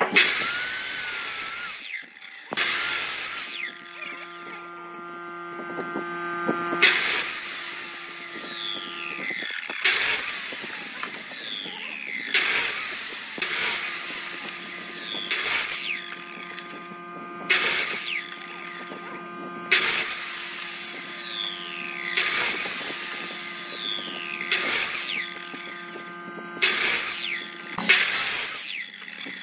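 Electric miter saw cutting through a wooden board again and again, about a dozen short cuts roughly two seconds apart. The motor hums at a steady pitch between cuts while the blade spins.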